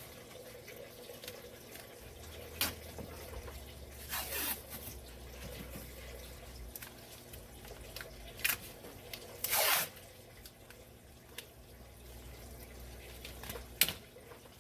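Masking tape being pulled off the roll in two short ripping strips, about five seconds apart, with a few sharp ticks between as it is pressed over a rag.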